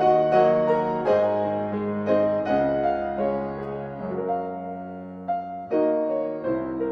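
Slow piano chords playing an instrumental interlude in a gospel song, each chord struck and left to ring and fade.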